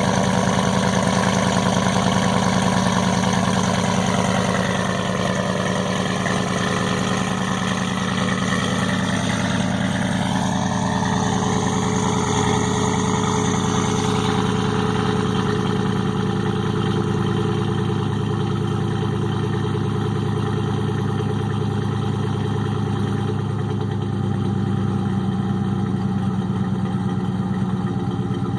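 Chevy Silverado 5.3L V8 idling steadily, heard right at the tailpipe through Kooks long-tube headers and a Jones JT3030 turbine muffler.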